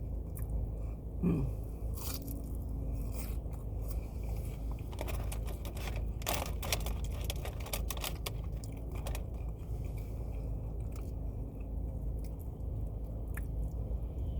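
A person chewing crunchy fried food close to the microphone, with irregular loud crunches from bites, thickest about five to seven seconds in, over a steady low hum.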